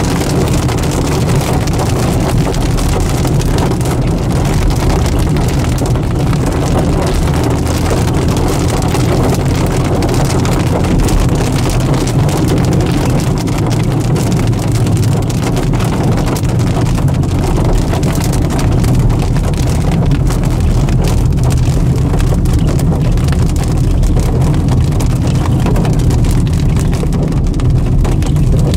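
A car driving in rain: a steady low rumble of engine and tyres with many small ticks of raindrops hitting the car.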